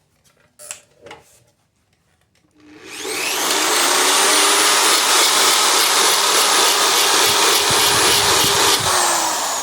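Handheld electric power tool cleaning the metal surface of an oil pan in preparation for welding. About three seconds in it spins up, then runs steadily with a high whine, and near the end it winds down with a falling pitch.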